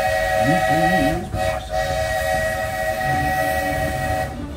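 Narrow-gauge steam locomotive's whistle blowing several notes at once in long blasts, with two short breaks a little over a second in, then cutting off near the end.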